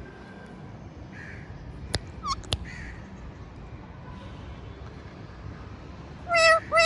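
Parrot giving two loud, harsh squawks near the end, after a couple of sharp clicks and a brief falling chirp about two seconds in.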